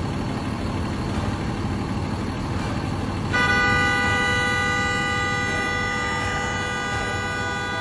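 A car horn is held down: a steady, unbroken blare that starts about three seconds in and keeps going. Under it, and before it, a vehicle engine idles with a low rumble.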